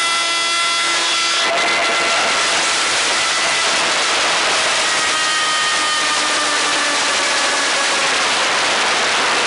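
Stadium crowd roaring after a goal. Over the roar come long held notes: one ends about a second and a half in, and another sounds in the middle, slowly dropping in pitch.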